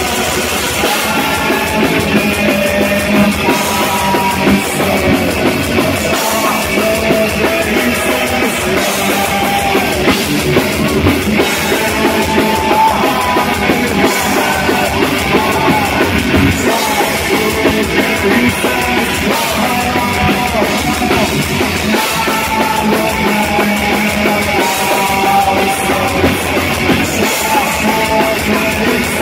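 Live heavy metal band playing loud, with a pounding drum kit and guitars.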